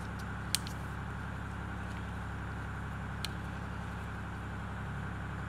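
A steady low machine hum, with two light clicks, about half a second in and just past three seconds in, from a screw being tightened into the recoil pulley of a chainsaw starter cover.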